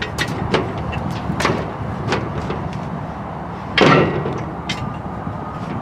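Metal knocks and clanks from the jib winch's steel main boom being pulled out of its socket, with one loud clank about four seconds in that rings briefly.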